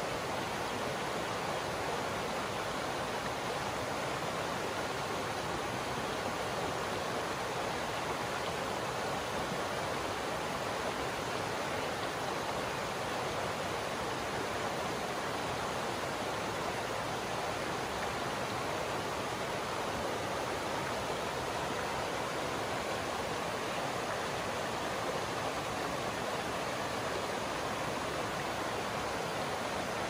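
Shallow rocky mountain stream running over stones and small riffles: a steady, even rush of water.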